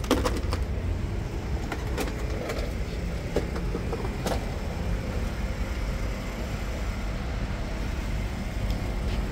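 A steady low vehicle rumble, with a handful of sharp clicks and knocks spread over the first four seconds or so.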